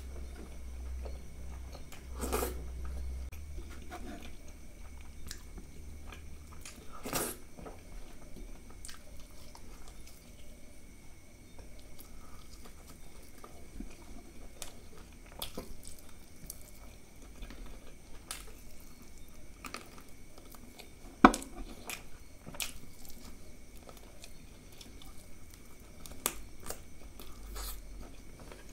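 Close-miked chewing of mutton pieces from a curry, wet mouth sounds broken by scattered sharp clicks, the loudest about two-thirds of the way through.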